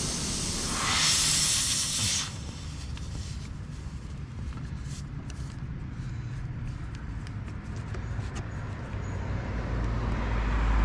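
Pressurised air hissing out of a tire puncture, swelling louder and then cutting off abruptly about two seconds in as the hole is closed by the plug tool. Faint scattered clicks follow, and a low rumble builds near the end.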